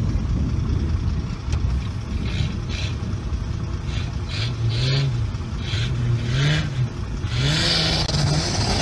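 A 4x4 SUV's engine revving up and down in repeated swells as it claws at a steep dirt slope, with a rushing noise of spinning tyres and thrown dirt coming in near the end.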